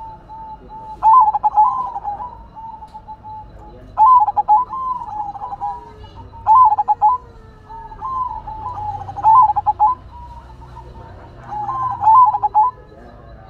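Zebra dove (perkutut) singing its cooing song: a quick stuttering burst of notes that rolls into a softer trilled coo. The phrase comes five times, about every three seconds.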